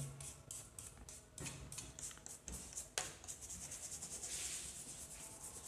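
Faint bristle scrubbing of a small damp brush on the rubber ring of a camera zoom lens, in quick repeated strokes, with one sharp click about three seconds in.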